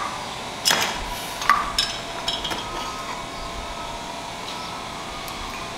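A few light metallic clinks and knocks in the first couple of seconds, over a steady hum: metal engine parts being handled as a finned cylinder is lifted off a Harley-Davidson V-twin engine during a top-end teardown.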